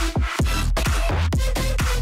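Electronic dance music with heavy bass and a steady, driving beat.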